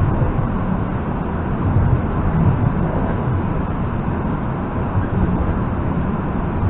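EP2D electric multiple unit running at speed, heard from inside the carriage: a steady, loud low rumble of wheels and running gear with a faint whine above it.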